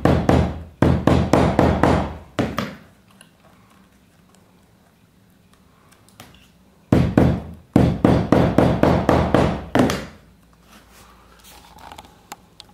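Two runs of quick hammer blows, about four a second, the first at the start and the second about seven seconds in, driving the teeth of a metal hidden-seam tape through faux leather into a wooden board.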